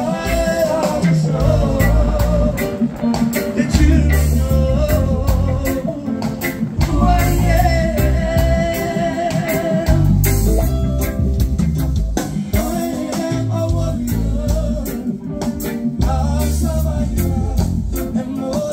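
A live band playing a song: sung vocals over electric guitar, bass guitar, drum kit and keyboard.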